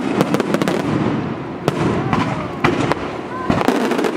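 Aerial fireworks bursting: a string of sharp bangs and crackles, bunched in the first second and again near the end, with single reports in between.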